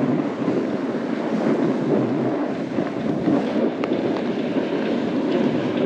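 Snowboard sliding over snow while riding at speed, with wind rushing over the microphone as a steady noise.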